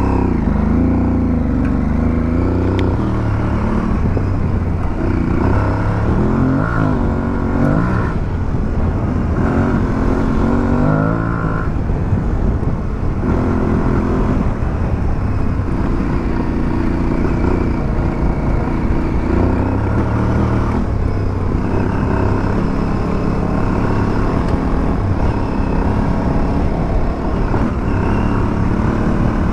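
2022 Aprilia Tuareg 660's parallel-twin engine being ridden off road, its revs rising and falling again and again as the throttle opens and closes.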